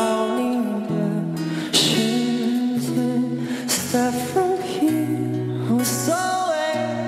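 A male vocalist sings a Chinese pop song into a microphone, accompanying himself on acoustic guitar over a backing band.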